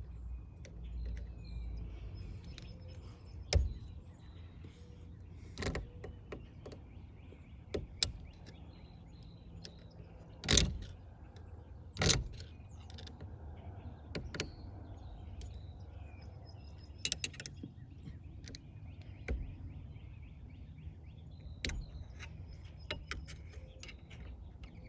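Scattered sharp metallic clicks and taps from hand tools and a snap ring being worked onto a car's steering column, about a dozen over a steady low hum, the loudest two in the middle.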